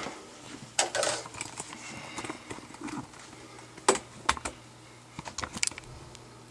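Scattered sharp clicks and light knocks, with a quick cluster near the end, as the plastic box of an AquaClear hang-on-back aquarium filter and a bottle brush are handled and set down in a bathroom sink.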